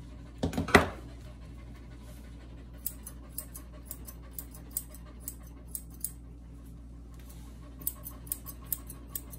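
Grooming scissors snipping through a toy poodle puppy's coat in two runs of short, sharp snips, the second near the end. A few louder knocks come about half a second in.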